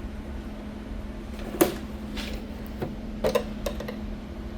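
A few sharp clicks and taps of a knife blade prying at the plastic door-handle trim of a microwave, the loudest about a second and a half in and a quick cluster a little after three seconds, over a steady low hum.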